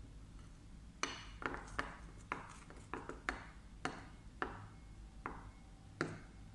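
Metal spoon clinking against a ceramic bowl while stirring cake batter: about a dozen short, irregular clinks, roughly two a second, starting about a second in.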